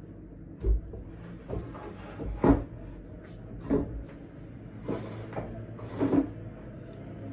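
Wooden knocks and thumps from the top of a folding wooden table as it is swivelled, unfolded and pressed down: about six knocks roughly a second apart, the loudest a little past two seconds in.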